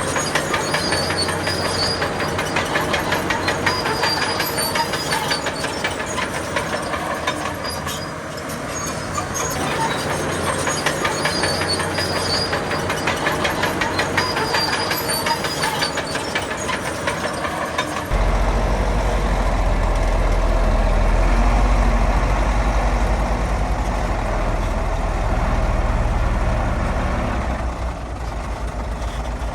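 Heavy diesel earthmoving machinery running, with a dense, rapid metallic clatter and faint high squeals. About two-thirds of the way through it changes abruptly to a deep, steady engine drone.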